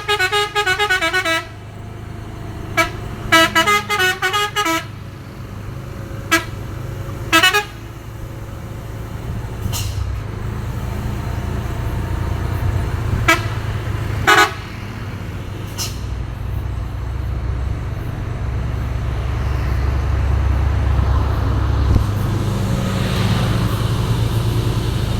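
Telolet musical horns playing two rapid warbling multi-note bursts in the first five seconds, then several short single horn blasts, over a heavy vehicle's low engine rumble that grows steadily louder through the second half.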